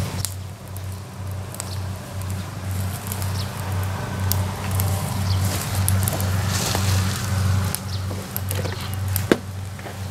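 An engine running steadily, a low drone pulsing about two to three times a second, with scattered light clicks and one sharp knock about nine seconds in.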